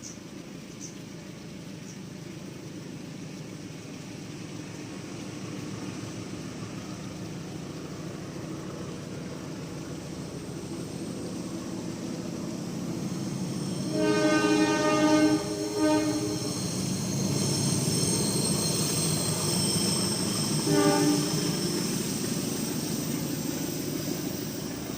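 A passing train: a low rumble grows steadily louder, and its horn sounds for about two seconds around the middle, then once more briefly a few seconds later.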